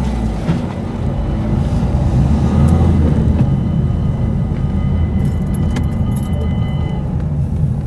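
Car driving slowly along a country road, a steady low rumble of engine and tyres, with a faint steady high whine that stops near the end.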